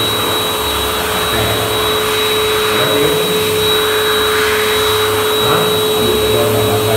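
Wall-mounted electric hand dryer blowing steadily: a rush of air with a steady motor whine.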